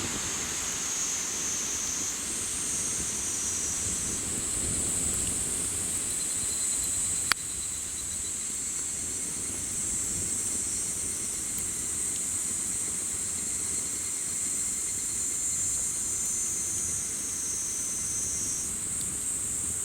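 Chorus of summer evening insects: a steady, high-pitched shrilling from several insects at slightly different pitches, over the soft low rustle of a campfire, with one sharp crackle from the fire about seven seconds in.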